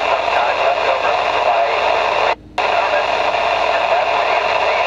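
Steady FM static hissing from a Yaesu FTM-350 VHF transceiver's speaker, tuned to the ISS downlink on 145.800 MHz with the squelch open on a weak signal; it cuts out briefly about two and a half seconds in.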